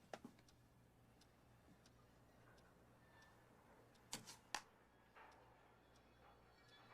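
Near silence over a steady low hum, broken by a few soft clicks: two at the start and three more about four seconds in.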